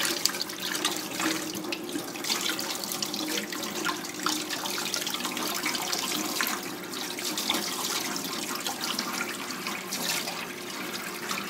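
Kitchen tap running in a steady stream onto a gutted fish held in the hands over a stainless steel sink, with water splashing as the fish is rubbed clean inside.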